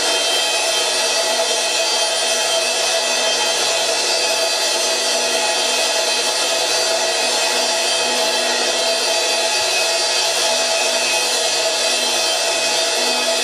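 Cymbal kept sounding in a dense, steady wash of many ringing metallic tones, with no separate strikes and no dying away.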